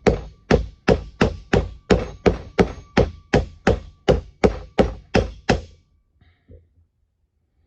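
Copper hammer tapping on an old Armstrong pipe vise to drive out a stuck part: about sixteen even blows at roughly three a second, stopping about six seconds in.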